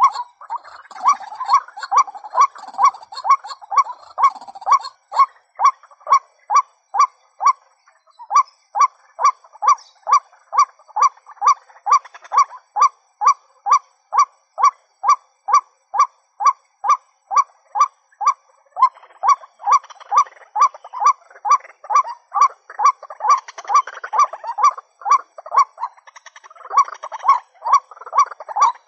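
Female white-breasted waterhen calling: a long, even run of clipped single notes, about two and a half a second. In stretches a second, rougher run of calls overlaps it.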